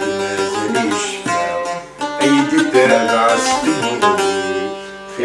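A Kabyle mandole, a fretted lute with a bowl-shaped body, is plucked in a melody of quick successive notes. It dips briefly about two seconds in, then comes back louder.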